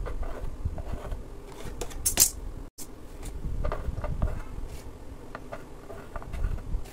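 Metal palette knife spreading and scraping whipped-cream icing on a cake, with soft scrapes and light taps. There is one short, sharp hiss about two seconds in.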